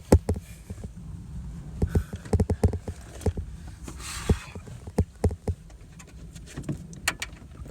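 Irregular clicks and knocks of hands working the plastic third brake light housing and its clips as they are pushed to seat, with a short scrape about four seconds in; the clips are not catching.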